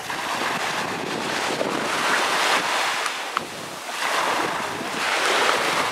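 Small waves washing up the sand at the shoreline, the surf swelling twice.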